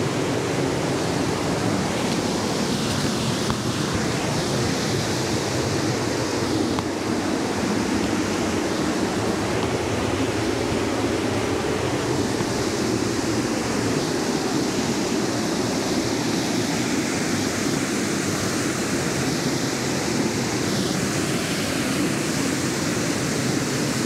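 Steady rush of river water and a small waterfall pouring over rocks.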